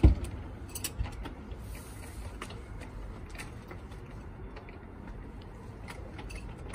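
A thump, then a key clicking and rattling in a motel room door lock as it is turned. The key keeps turning without catching, a sign of a broken lock.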